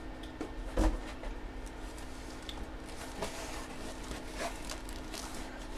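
Hands handling packaging: light clicks and rustles with one louder knock about a second in, over a steady low hum.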